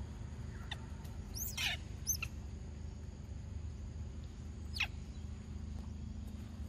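Young macaques giving short, high-pitched squeaks, four in all, each sliding quickly down in pitch; the loudest comes about one and a half seconds in.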